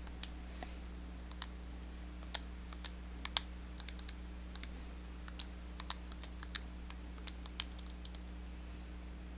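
Keys being pressed one at a time, about twenty irregularly spaced clicks, as a number is keyed in to work out a division. A faint low hum lies underneath.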